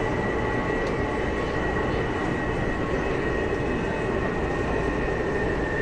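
Inside a medium-capacity steel-wheel, steel-rail metro train car running at speed: a steady rumble of the wheels on the rails, with a thin steady high tone above it.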